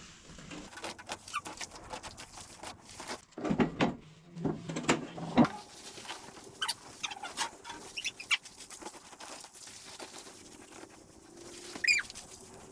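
Crackling and rustling of net wrap being pulled off a straw bale by hand, with a bird chirping briefly near the end.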